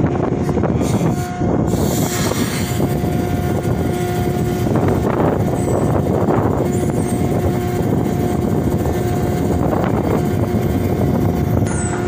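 Ship's engine and deck machinery running steadily: a constant, loud drone with a steady hum through it.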